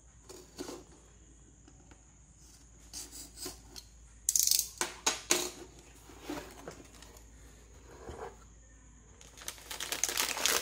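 A cardboard motherboard box being slit and opened by hand: scattered scrapes, taps and knocks of the cardboard, loudest in a flurry a little before the middle. Near the end comes the crinkling of the board's plastic anti-static bag.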